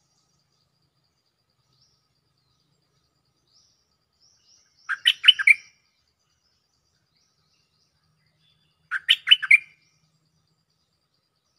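Stripe-throated bulbul singing two short phrases, each a quick run of bubbly notes, about four seconds apart: a caged decoy bird calling for a mate.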